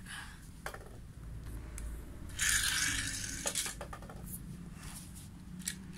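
Light handling noise from die-cast toy cars and plastic race track being picked up and moved: scattered small clicks and taps, with a brief rustle about two and a half seconds in.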